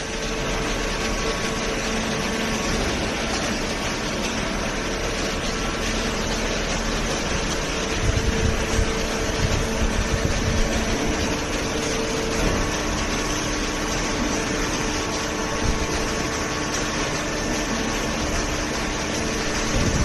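Horizontal cardboard baler and its feed conveyor running: a steady mechanical hum carrying a few steady tones. A cluster of irregular low thumps comes from about eight to eleven seconds in.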